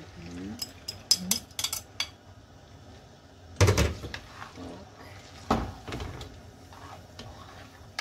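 Black plastic cooking utensil clicking, scraping and knocking against a frying pan as beaten eggs are spread in it. A quick run of clicks comes in the first two seconds, then two heavier knocks about three and a half and five and a half seconds in.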